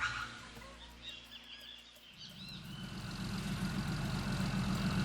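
A few bird chirps fade out over the first couple of seconds. Then, about two seconds in, a motor vehicle's engine comes in as a low rumble and grows steadily louder as it approaches.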